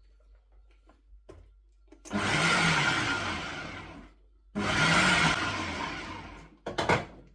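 Electric food processor cutting okra, its motor switched on in two pulses of about two seconds each, each starting abruptly and dying away, followed by a brief third pulse near the end.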